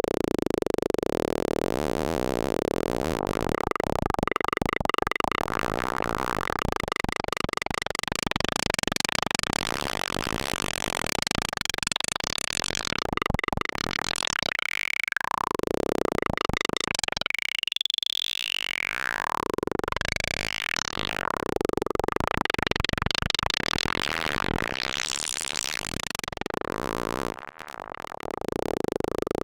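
K-Accumulator synthesizer module playing a plucky two-operator FM texture tuned to just-intonation ratios. Dense, shifting tones with arcs sweeping up and down in pitch, and a brief drop in level near the end.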